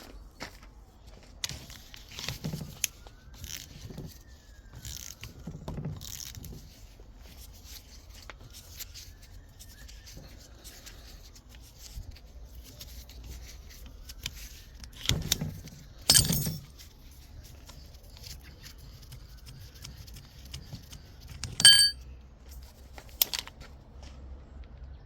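Metal parts and hand tools clinking, knocking and scraping as they are handled, with two sharp louder metal clinks, the second about three-quarters of the way in ringing briefly.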